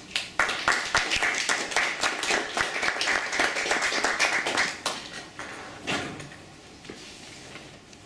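A small group of people applauding with hand claps. The clapping lasts about four and a half seconds, then thins to a few last claps around six seconds in.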